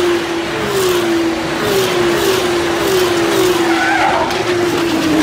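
Formula 2 race cars passing at speed in quick succession, their turbocharged V6 engines at high revs, each engine note falling in pitch as it goes by, over a steady rush of noise.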